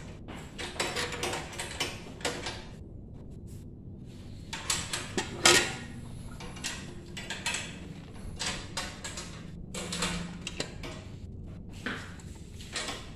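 Irregular metallic clanks, knocks and scrapes as a bandsaw's steel stand and metal table are handled during assembly, with one loud knock about five and a half seconds in.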